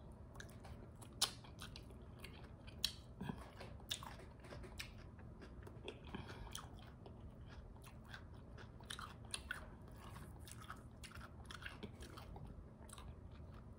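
Close-miked chewing of a spoonful of creamy coleslaw: faint, scattered wet crunches and mouth clicks, a few sharper ones in the first few seconds.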